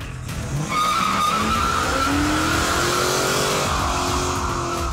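A car doing a burnout: tyres squealing as they spin, while the engine revs with a slowly rising note.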